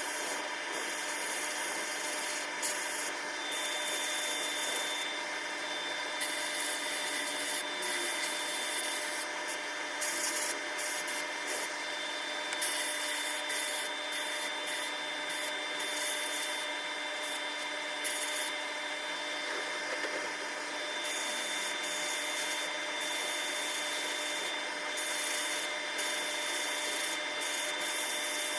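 Abrasive rubbing of a part against a running power tool, over the tool's steady hum. The rubbing comes and goes every second or so as the work is pressed on and lifted.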